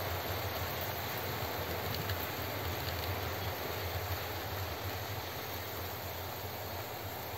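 OO gauge model trains, led by a model high speed train set, running on the track: a steady rolling rumble with a low motor hum that eases off slightly toward the end. The locomotive motor is fed by an H&M Duette voltage-controlled DC controller, which runs it smoothly with no stuttering.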